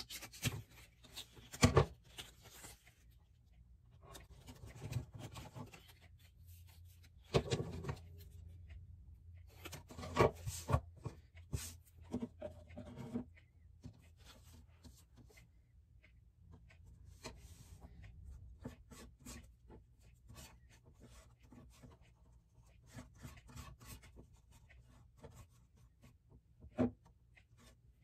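Quiet crafting sounds at a table: scissors snipping scrapbook paper and paper rustling, then a glue brush spreading Mod Podge. Scattered small clicks and rubbing run throughout, with a few brief louder knocks of things set down on the wooden tabletop.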